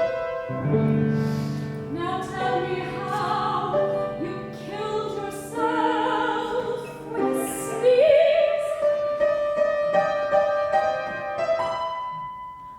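Piano accompaniment playing chords in an operatic score, with a voice singing held notes over it at times.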